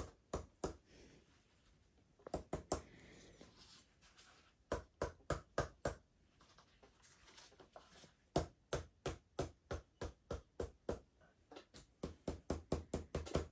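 Gloved hand tapping all over a freshly flocked duck decoy to knock the loose flocking fibres off, in runs of quick knocks, several a second, with short pauses between the runs.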